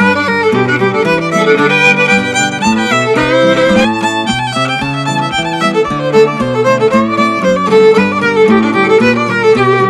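Old-time fiddle tune: a fiddle bowing a quick melody over acoustic guitar accompaniment.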